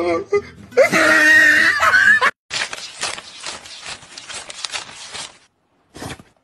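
A loud scream-like cry that stops abruptly, followed by a stack of paper banknotes being thumbed through by hand, a fast irregular run of crisp flicks and rustles.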